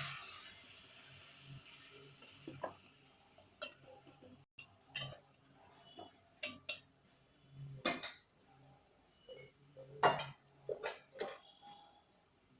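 Metal utensils clinking and knocking against a cooking pot, in scattered separate strikes, some with a light metallic ring. A sizzle fades away at the start.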